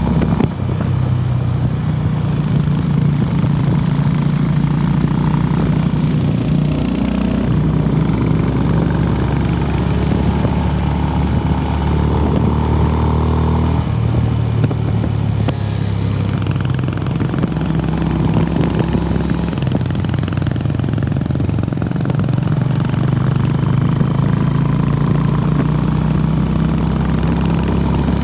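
Honda CB350RS single-cylinder engine running on the move, its pitch shifting a few times as the throttle changes, with a sharp click about half a second in.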